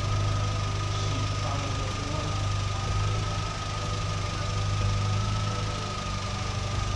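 R50 Mini Cooper's four-cylinder petrol engine idling steadily while it warms up, the low-speed cooling fan not yet running. A steady high whine sits above the engine hum.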